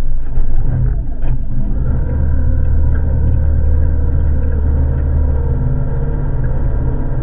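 Small outboard motor on an aluminium boat running steadily at a constant low speed, a steady low hum.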